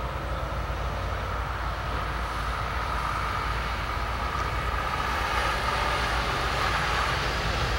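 CSX freight train rolling past slowly with a MARC bilevel coach in its consist: a steady rumble of wheels on rail, growing slightly louder, with a faint wavering high whine over it.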